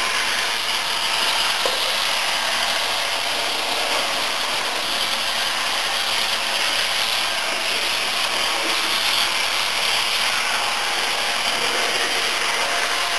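Two Tenshodo HO-gauge EF15 electric locomotive models running coupled together: a steady mechanical whirring and rattling of their motors, gears and wheels on the track.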